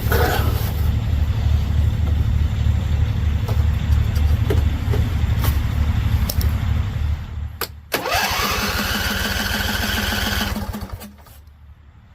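Husqvarna Z254 zero-turn mower's engine running with a steady low pulse, then stopping about seven seconds in. About a second later the electric starter cranks it with a rising whine for about three seconds, and then it cuts off without the engine catching.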